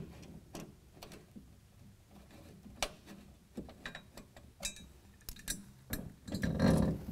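Hex key turning an M6 button-head bolt to fasten a bed-rail cargo spacer: small irregular metallic clicks and ticks. A longer, louder handling noise comes near the end.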